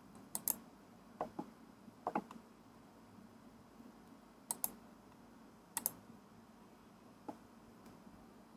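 Scattered sharp clicks from a computer keyboard and mouse, about nine in all, several in quick pairs, over a faint steady hiss.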